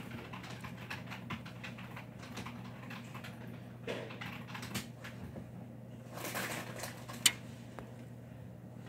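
Scattered light clicks and taps over a steady low hum, with one sharper click near the end.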